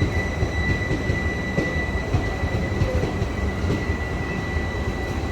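Passenger express train running through at speed: a continuous rumble and clatter of wheels on rail, with a steady high whine held throughout.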